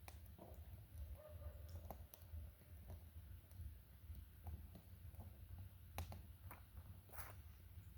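Faint, scattered snaps and clicks of small twigs at a campfire that is slow to catch, over a low steady hum. The sharpest clicks come about six and seven seconds in.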